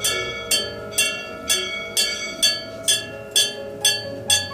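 A bell struck in a steady rhythm, about twice a second, each strike ringing on, over soft held notes.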